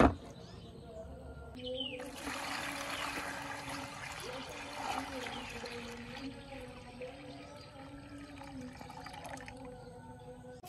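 Water poured from a bucket into a plastic tub, splashing over a mud-covered radio: the pour starts about two seconds in, runs strong for about four seconds, then thins to a softer trickle and settles. A sharp knock at the very start is the loudest moment.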